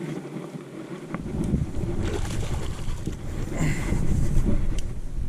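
Wind buffeting the microphone of a chest-mounted action camera: a low, rough rumble that starts suddenly about a second in, with a few light knocks.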